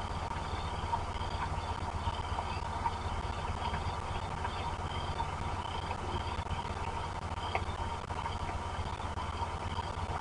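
Steady rain on an outdoor wildlife camera's microphone: a low, even rumble with a fine pattering crackle. A faint high chirp repeats about twice a second behind it.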